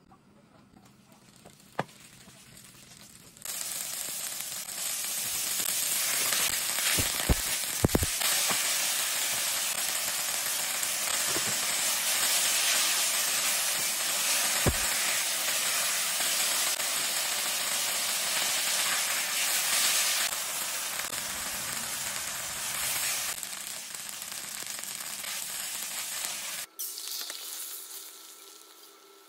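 Stir-frying in a non-stick wok over a gas burner. A few seconds in, a loud, steady sizzle starts as food hits the hot oil, and rice noodles and tofu are tossed with a spatula, giving a few sharp knocks against the pan. After an abrupt break near the end, a softer sizzle of a thin layer of egg frying fades out.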